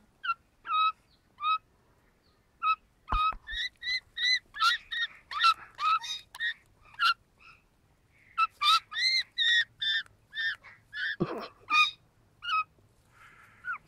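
Young Australian magpie giving runs of short calls, several a second with a few brief pauses, as it lies on its back having its belly rubbed.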